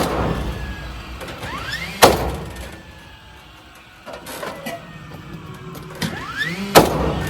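A cordless nail gun fires three times, each shot a sharp crack led in by a short rising motor whine, fastening siding boards.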